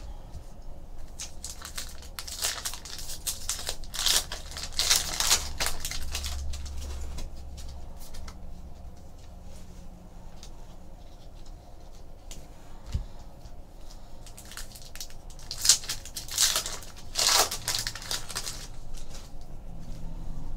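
Trading-card pack wrappers being torn open and crumpled, crinkling in two spells, one a few seconds in and another past the middle, with small clicks of cards being handled.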